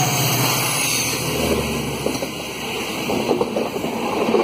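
A WDP4D diesel locomotive with a 16-cylinder two-stroke EMD engine passes close alongside; its engine drone fades within the first second or two. It gives way to rushing wind and the quickening clatter of the passing coaches' wheels over the rail joints. The sound is heard from the window of a moving train.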